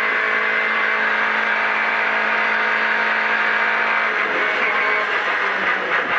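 Renault Twingo R2 rally car's 1.6-litre four-cylinder engine heard from inside the cabin, held at steady high revs in fifth gear on a flat-out straight, with road and wind noise. About four seconds in, the steady engine note wavers and breaks up.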